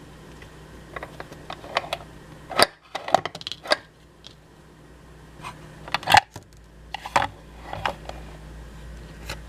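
Small hard plastic toys clicking and clattering as they are handled: scattered sharp clicks, with a quick run of them about three seconds in and another around six to eight seconds.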